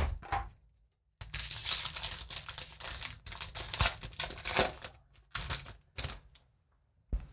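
A Magic: The Gathering booster pack's foil wrapper being torn open and crinkled by hand: about four seconds of dense crackling, then two shorter bursts. There is a soft thump at the start and another near the end.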